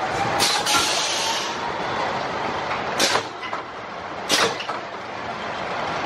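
E&F Miler steel roller coaster train rolling slowly into the station at the end of the ride: a steady rumble of wheels on steel track, with a few sharp clacks, two just under a second in and the loudest about three and four and a half seconds in, and a short hiss about a second in.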